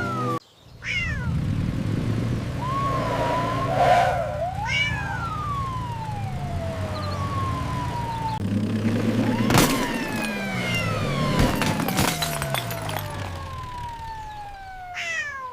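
Cat meows, a series of long falling calls one after another, over a steady backing track of music.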